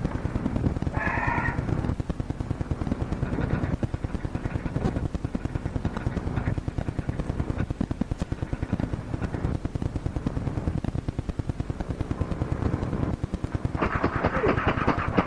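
Rapid, even mechanical clatter of office machinery in a 1950s fire alarm dispatch office, going on without a break. A short pitched sound cuts in about a second in, and a voice starts near the end.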